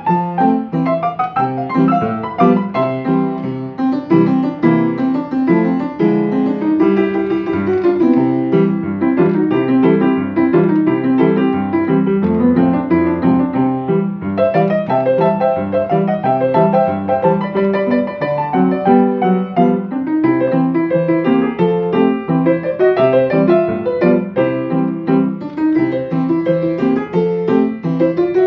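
Upright player piano playing a ragtime piece without pause. Its rinky tink rail is lowered in front of the hammers.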